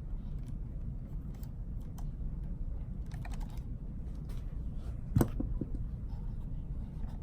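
Small scattered clicks and taps of hand tools and small plastic and metal parts being handled while working on an RC truck, with one louder knock about five seconds in.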